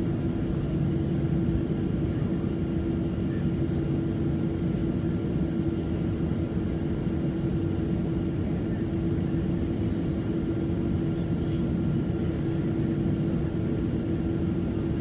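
Boeing 737-700's CFM56-7B jet engines idling, heard inside the passenger cabin as a steady low drone with a constant hum.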